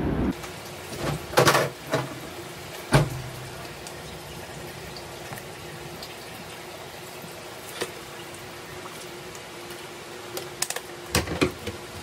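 Scattered light knocks and clicks of things being handled, a couple near the start, one about three seconds in and a cluster near the end, over a steady low room hum.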